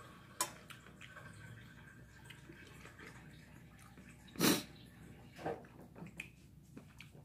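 Eating sounds: chopsticks clicking and scraping in a stainless steel pot of stew, a few light taps, with one loud, short burst of noise about four and a half seconds in.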